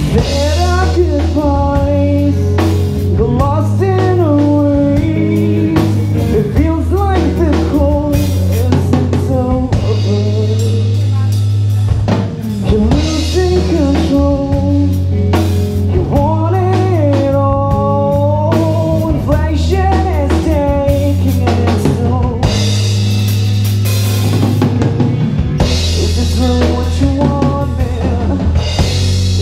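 A live rock band playing, heard from right beside the drum kit: snare, rimshots and bass drum close and loud over a steady bass line, with a lead melody that bends and slides in pitch.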